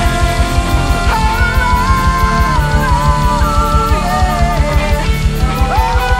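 Rock worship band playing loud: a fast, steady drum beat under bass and distorted guitars, with a melodic lead line gliding between held notes.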